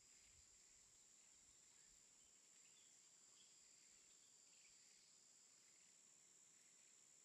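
Near silence: a faint, steady high-pitched drone of insects, with a few faint chirps.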